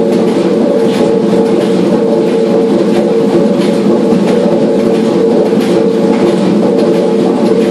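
The paddle steamer Marion's steam engine running under way, a loud, steady mechanical clatter over a constant hum.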